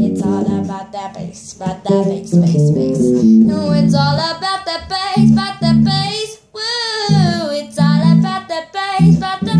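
A girl singing over a five-string electric bass, an RMI Expression bolt-on tuned E to high C, played as plucked accompaniment. She holds one longer note about seven seconds in. Recorded through a phone's microphone.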